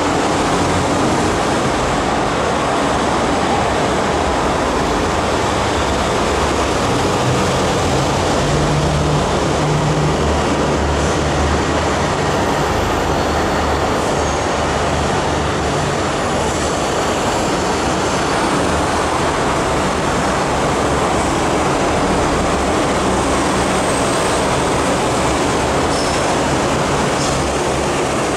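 MTR Kwun Tong Line C-Train running slowly along the elevated track: a steady rumbling running noise, with a low hum that is strongest about eight to ten seconds in.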